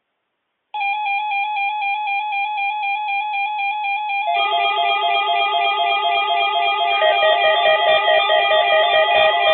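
Several NOAA weather radio receivers sounding their electronic alarms, set off by the Required Weekly Test: a loud, rapidly pulsing beep starts about a second in, and a second receiver's lower alarm tone joins at about four seconds, with another joining at about seven.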